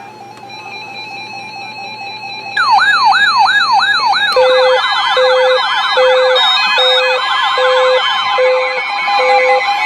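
Electronic alert alarms sounding together. A steady tone is joined a few seconds in by a fast, repeating falling siren-like sweep, about four a second, then by more overlapping sweeps and a low beep pulsing under twice a second.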